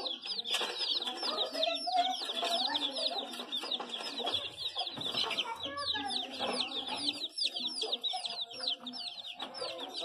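A crowd of baby chicks peeping nonstop: many short, high cheeps that fall in pitch, overlapping several to the second, over softer, lower sounds.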